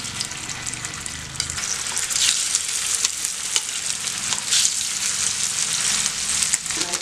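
Marinated seer fish pieces shallow-frying in hot oil, sizzling with frequent sharp crackles. The sizzle grows louder about two seconds in, as more pieces go into the pan.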